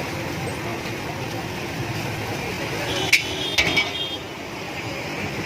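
Metal cooking utensils clank against a pan: one sharp ringing strike about three seconds in, then two or three quicker clinks, over steady road traffic noise.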